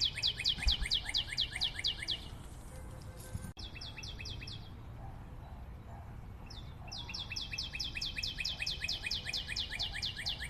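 Bird trilling: a fast run of short downward-sliding chirps, about six a second, coming in bouts that break off about two seconds in, return briefly around four seconds, and resume near seven seconds.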